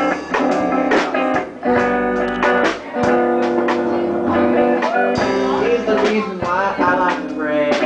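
Electric guitar strumming chords through a small amplifier, chords struck again and again and left to ring, while a young man sings into a microphone, his voice gliding up and down around the middle and again near the end.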